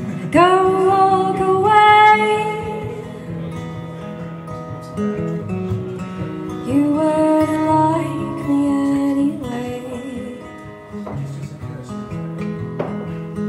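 A woman singing an original song to her own strummed acoustic guitar. There are two sung lines, one at the start and one about halfway through, with guitar alone between them and to the end.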